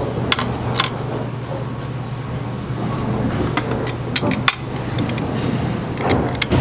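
Bowling pinsetter machinery running with a steady low hum, broken by a few sharp metallic clicks and clanks.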